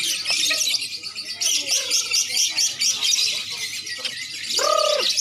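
A dense chorus of caged lovebirds and oriental magpie-robins (kacer) chirping and trilling all at once in a continuous high-pitched jumble of rapid notes.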